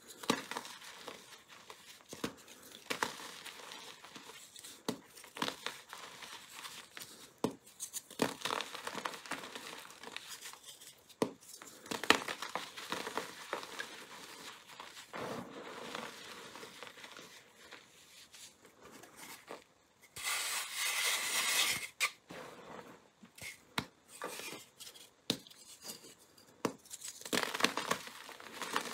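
Gym chalk blocks coated in colored powder and glitter being broken and crumbled by hand: irregular crisp cracks and crunches, with the dry rustle of powder rubbing between the palms. About two-thirds of the way through comes a longer, louder stretch of rustling.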